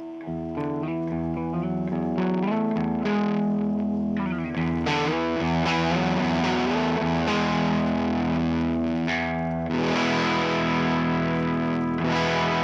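Electric guitar (Squier Jazzmaster) through a Basic Audio Futureman drive pedal stacked into a Timmy overdrive. It plays sustained notes and licks with bent strings, then louder distorted chords from about five seconds in.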